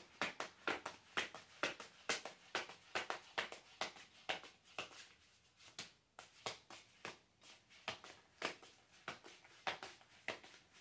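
A deck of reading cards being shuffled and handled by hand: a steady run of light taps and flicks, about two or three a second.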